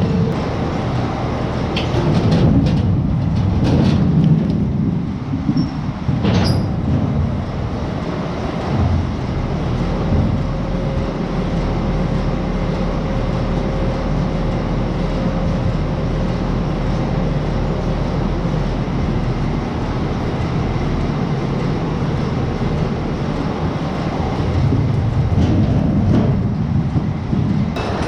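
Potato unloading and conveying machinery running steadily with a continuous rumbling clatter. A few sharp knocks come in the first few seconds, and a steady hum sits under it through the middle.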